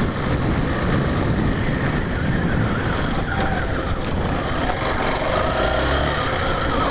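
Steady wind noise on the microphone with a motorcycle engine, the Yamaha Factor 150, running underneath.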